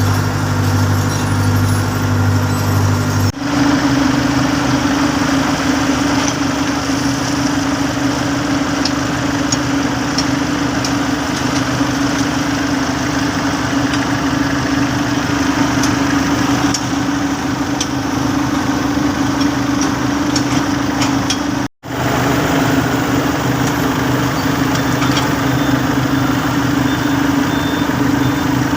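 Heavy road-works machinery engine running steadily with a constant hum. The sound changes abruptly about three seconds in and cuts out for a moment about two-thirds of the way through.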